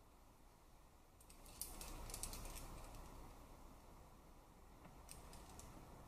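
Faint light clicking of climbing gear as a climber moves on the rock: a quick cluster of clicks about a second and a half in, with a swell of low rustle, and two more clicks near the end. Otherwise near silence.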